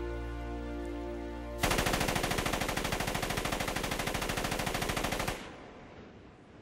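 Thompson submachine gun firing one long, unbroken burst of rapid shots lasting about three and a half seconds, starting about one and a half seconds in. A soft orchestral score plays before the burst, and rain hiss is left after it stops.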